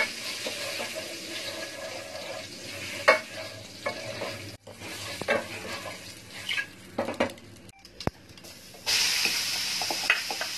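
Black mustard seeds and asafoetida sizzling and crackling in hot oil in a pot, with a wooden spoon stirring and clacking against the pot. About nine seconds in, grated radish is tipped into the hot oil and the sizzle suddenly gets louder.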